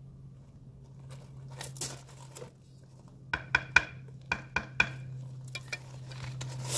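Steel mason's trowel scraping along concrete block and mortar, then a quick run of about six sharp, ringing taps of the trowel on the top of the block course. A steady low hum runs underneath.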